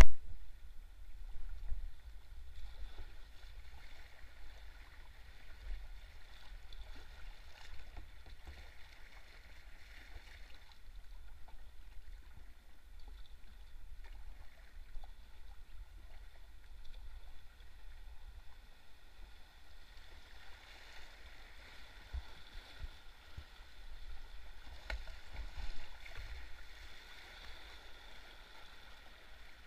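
Shallow, fast-flowing river water rippling and gurgling around a kayak's hull, over a steady low rumble. A brief loud knock right at the start.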